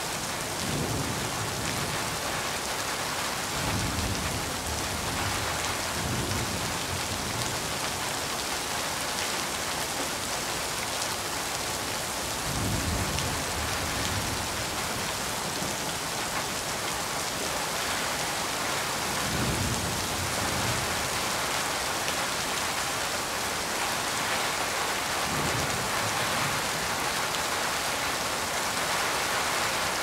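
Steady rain falling on a corrugated metal roof, an even, dense patter. Low rumbles swell up and fade away several times, a few seconds apart.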